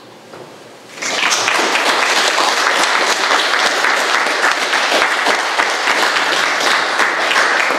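Audience applauding: a burst of many hands clapping that breaks out about a second in and keeps up steadily.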